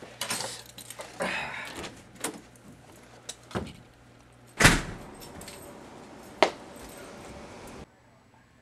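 Handling and movement noises: rustling against the camera, light jingling clicks, and one loud thud a little over halfway through.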